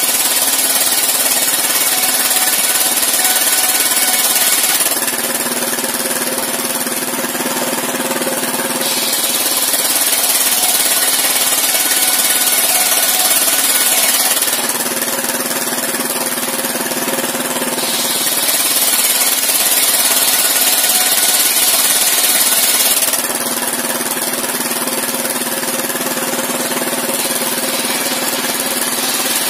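Engine-driven sawmill circular saw rip-cutting boards lengthwise. The engine runs steadily throughout, and the blade's cutting noise comes in three passes of about five seconds each, with the saw spinning free between them.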